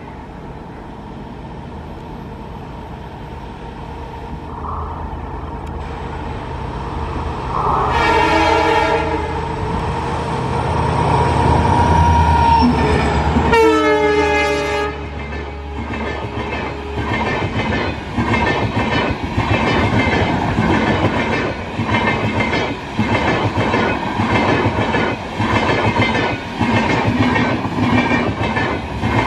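WDP4-class diesel locomotive hauling an express train closes in, its engine growing louder, and sounds its horn twice: once about eight seconds in and again as it passes some five seconds later, the second blast sliding down in pitch. The passenger coaches then run past with a steady, rhythmic clickety-clack of wheels over rail joints.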